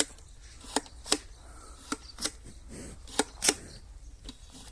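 Sharp clicks and knocks from something being handled, about seven, irregularly spaced, over a faint background.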